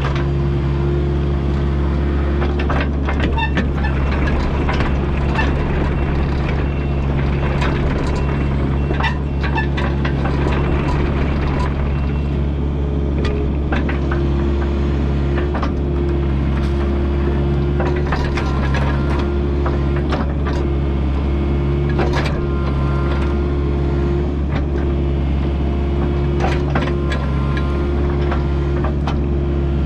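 Kubota U55-4 mini excavator's diesel engine running steadily while the machine works dirt, with frequent sharp metallic clanks and knocks.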